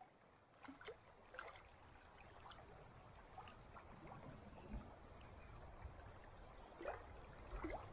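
Near silence: faint outdoor ambience, a soft steady hiss with a few faint short chirps scattered through.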